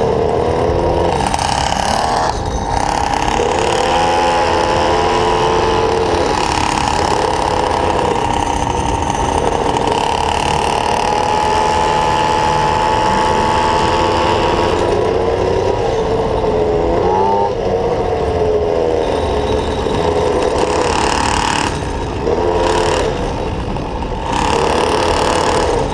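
Small engine of a gas-powered stand-up scooter running at low speed, its pitch drifting up and down with the throttle and easing off briefly twice near the end.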